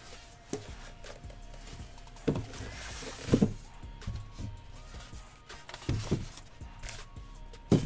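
Styrofoam packing blocks being handled and stacked on a table, with some tissue-paper rustling: a series of dull knocks and thuds, about six in all, the loudest about three and a half seconds in and near the end. Faint background music runs underneath.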